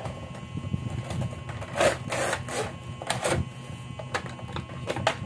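Plastic packaging crinkling and rustling in several short bursts as headphones in a clear plastic bag are pulled out of their cardboard box, loudest about two seconds in.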